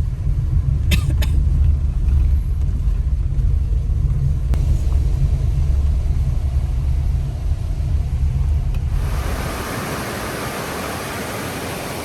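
Car driving on a rough, broken road, a heavy low rumble with two short clicks about a second in. About nine seconds in the rumble gives way to the even rushing hiss of a fast-flowing river.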